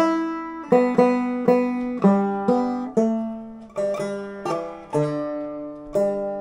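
Five-string banjo played clawhammer style with drop-thumb, picking out a melody. Separate plucked notes come about every half second, each ringing and fading before the next.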